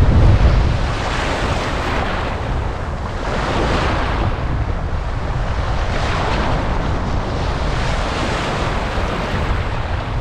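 Small sea waves breaking and washing over shallow sand, a hiss of surf that swells every two seconds or so. Wind rumbles on the microphone, strongest in the first second.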